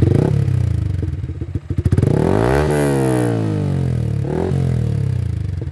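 Yamaha MT-15 V2's 155 cc single-cylinder engine revved through an aftermarket exhaust with its valvetronic cutout valve fully open, quite loud. A short blip at the start, one big rev that rises and falls about two to three seconds in, and a smaller blip near the end, dropping back to a pulsing idle in between.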